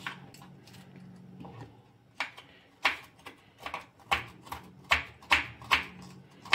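A kitchen knife cutting onions on a wooden cutting board. About ten sharp taps of the blade on the board start about two seconds in, coming roughly two a second.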